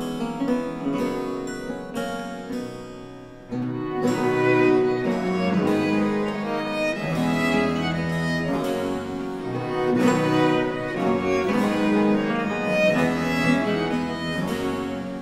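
Baroque string consort playing a chaconne on period instruments. A quiet passage of plucked chords fades, then violins, violas and bass violin come in together about a third of the way in, louder, over a plucked continuo and harpsichord.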